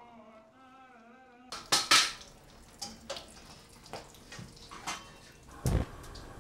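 Kitchen clatter: metal pots, a lid and utensils knocking on a gas stove and counter, a string of sharp clanks with the loudest about two seconds in and a duller heavy thump near the end.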